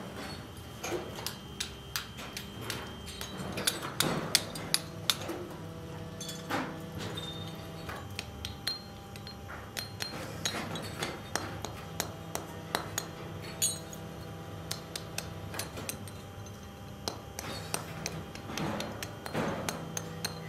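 Hand hammer striking cast metal motorcycle brake shoe castings held against a block, knocking off the casting scrap: irregular sharp metallic clinks and knocks with brief ringing, over a steady low machine hum.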